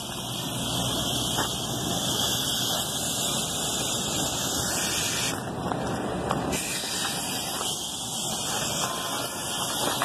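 Hose-fed foam sprayer spraying coil-cleaner foam onto a squirrel-cage blower wheel: a steady hiss of spray with foam and water splashing off the wheel.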